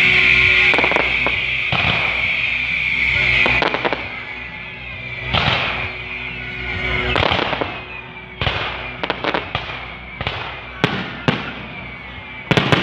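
Fireworks going off: a steady high hiss for the first three seconds or so, then separate sharp bangs with crackling tails, several in quick succession near the end.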